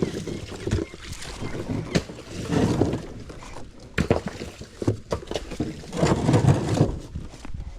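Puddle water sloshing and splashing in surges as it is pushed and kicked out with boots, with scattered sharp knocks.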